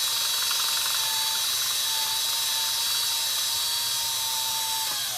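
Electric drill running steadily at full speed, with a steady whine, while enlarging a hole; it stops near the end.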